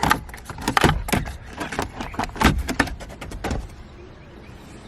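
A quick run of plastic clicks, knocks and rattles for about three and a half seconds, then it goes quieter: the Honda Civic EK's instrument cluster being worked free of the dashboard with its wiring connectors unplugged.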